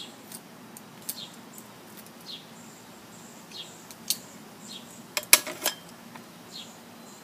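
Sharp clicks and ticks of a knife and hands working the plastic jacket off UF-B cable, the loudest a quick run of clicks about five seconds in.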